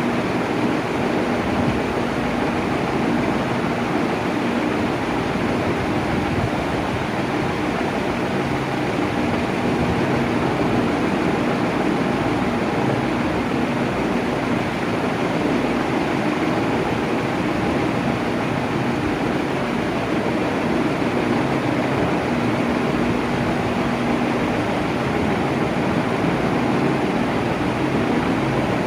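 Electric fan running steadily: an even rush of moving air with a faint motor hum underneath, with no change in speed.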